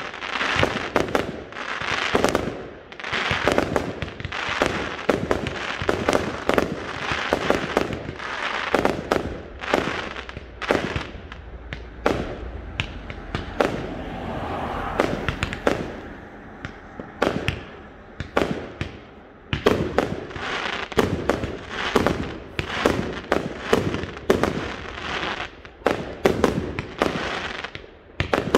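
Fireworks display: a rapid, continuous barrage of sharp bangs and pops. The bangs thin out for a few seconds about halfway, then come thick and fast again.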